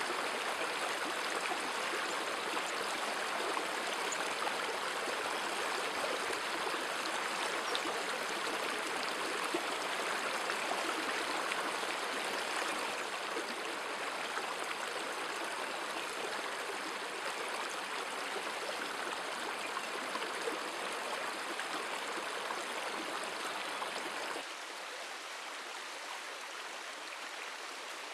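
Steady rushing of a flowing stream, with a faint steady high tone above it. About four seconds before the end it drops suddenly to a quieter, thinner rush without the tone.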